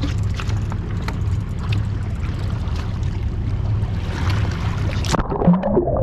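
Fishing boat's engine running slowly, a steady low rumble, with water sloshing and slapping along the hull. About five seconds in the sound changes abruptly, and a brief pitched sound follows near the end.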